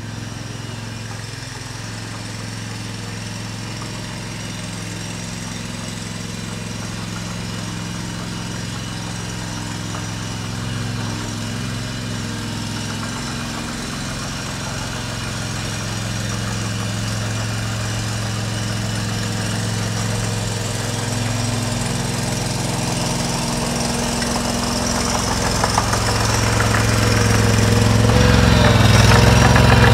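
Small gasoline engine of a walk-behind trencher running steadily, growing louder toward the end.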